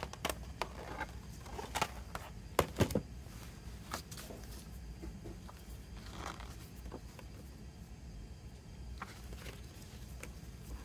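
Glossy printed paper being handled: a folded poster and a booklet flexed, slid and laid on a table, giving scattered rustles and crackles, the loudest a cluster of sharp crackles a little under three seconds in. A low steady hum runs underneath.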